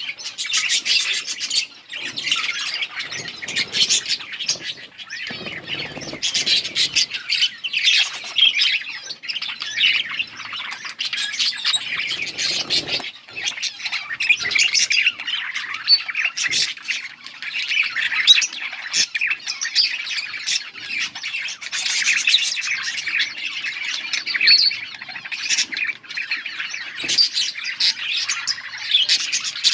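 Several budgerigars chirping and chattering without pause, with scattered harsher squawks.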